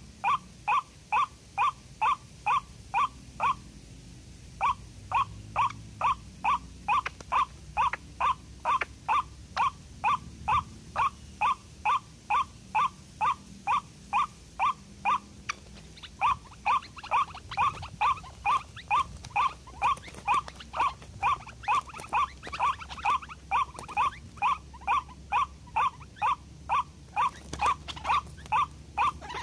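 White-breasted waterhen (ruak-ruak) calls repeated on and on at an even pace, about two and a half short notes a second, with two brief breaks, about four seconds in and again about sixteen seconds in. It is the lure call used to draw waterhens to the snares.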